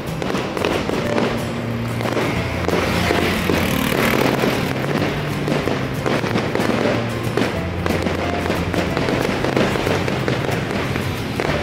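Aerial fireworks going off in a continuous barrage, a dense run of crackles and pops with glittering white shells bursting, over music with a steady bass line.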